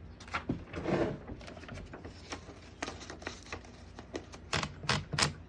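Irregular mechanical clicks and clacks from a 1936 Underwood Universal portable typewriter being worked by hand, with a brief rustle about a second in and several louder clacks near the end.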